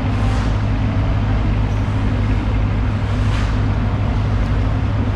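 A steady low mechanical drone under an even rushing noise, with a soft hiss swelling up briefly near the start and again about three seconds in.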